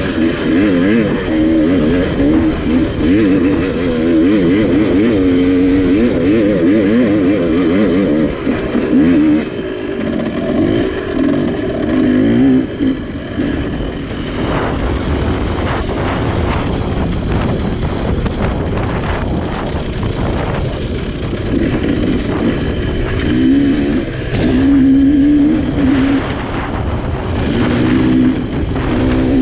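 GR8 300 2T's 300 cc two-stroke enduro engine running under way on a dirt trail, its revs rising and falling with the throttle. Scattered sharp knocks through the middle and later part.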